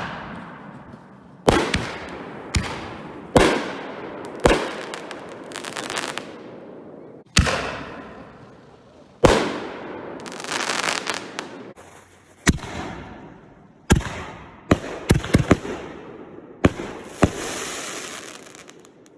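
Consumer firework aerial shells going off in quick, uneven succession: about a dozen sharp bangs, each trailing away in a long echo, with a cluster of rapid bangs and a spell of crackling near the end.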